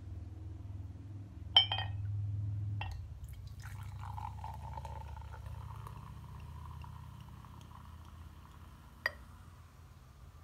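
A fizzy drink poured from a glass bottle into a glass tumbler: a sharp glass clink about one and a half seconds in, then a steady pouring, fizzing hiss for several seconds, with another sharp clink near the end.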